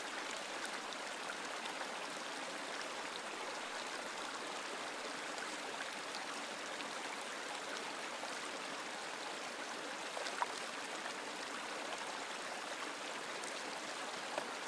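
Steady rush of flowing water, with one short click about ten seconds in.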